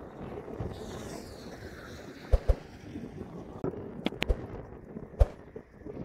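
Wind rumbling on the microphone, with a vehicle passing and fading in the first two seconds. Several sharp clicks or knocks cut through: two close together about two and a half seconds in, three more just after four seconds, and one after five.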